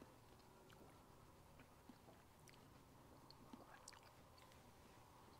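Near silence: a long ham knife slicing thin cuts from a cured Iberian ham leg, heard only as a few faint scattered ticks over quiet room tone.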